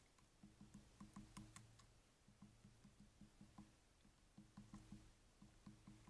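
Faint, irregular tapping clicks, typical of a woodpecker pecking at dead wood, over a low steady hum close to near silence.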